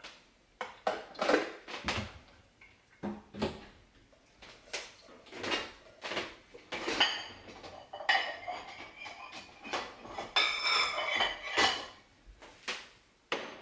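Kitchenware being handled: a pot, dishes and utensils knocked and set down in an irregular run of clanks and clinks, some ringing out metallically.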